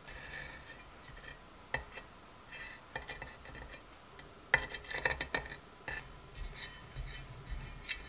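Metal palette knife and scraper smoothing buttercream icing on a cake, scraping and clicking against a metal cake turntable. Irregular light clicks and short scrapes, busiest a little past halfway.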